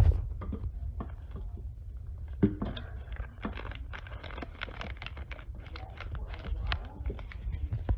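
Irregular light clicks and clatter from a plastic food-processor bowl and lid being handled, with some rustling.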